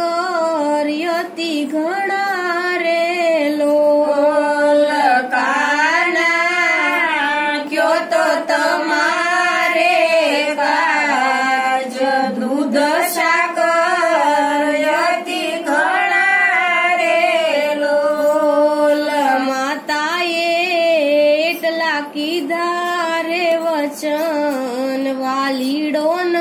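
A woman singing a devotional bhajan unaccompanied, one voice carrying a wavering, ornamented melody.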